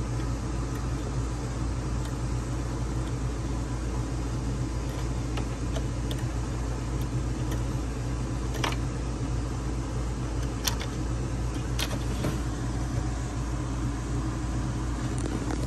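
Steady low mechanical hum with a few faint clicks partway through, the sound of small parts being handled.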